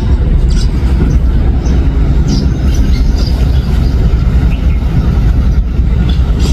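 Small birds chirping in short, scattered calls over a loud, steady low rumble.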